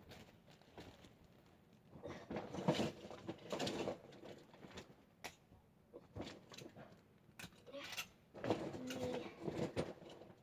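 Plastic and silicone fidget toys being rummaged through and handled: rustling and clatter in two spells, about two seconds in and about eight seconds in, with scattered clicks and a faint voice during the second spell.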